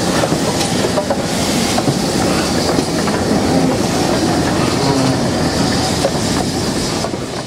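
GWR Manor class 4-6-0 steam locomotive No. 7820 Dinmore Manor and its tender rolling past close by: a loud, steady rumble of wheels on rail, with many sharp clicks and knocks as the wheels cross the rail joints.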